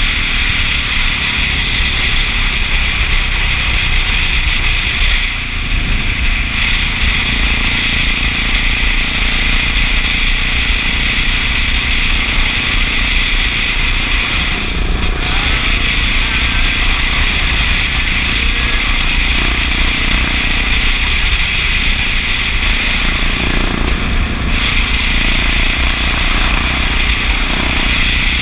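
Honda XR650L's single-cylinder four-stroke engine running at road speed, heard together with heavy wind buffeting on a helmet-mounted microphone. The steady higher noise eases off briefly three times, about five, fifteen and twenty-four seconds in.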